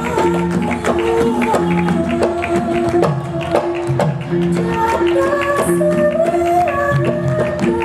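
Javanese gamelan playing: bronze metallophones strike a repeating melody over a sustained ringing tone and regular kendang drum strokes, with a woman's voice singing a wavering line over it in the second half.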